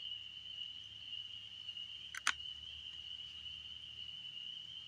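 A single sharp click about two seconds in as a red alligator clip is snapped onto a sealed 12-volt battery's terminal, over a steady high-pitched insect drone.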